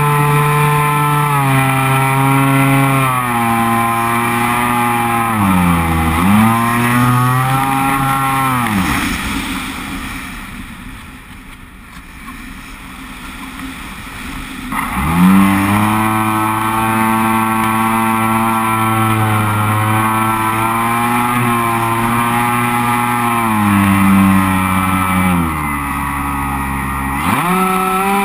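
Electric motor and propeller of an FPVRaptor model plane, recorded by the onboard camera, whining at a pitch that rises and falls with the throttle. About nine seconds in the motor winds down and only a quieter rush of air remains. Around fifteen seconds in it comes back up sharply to full whine.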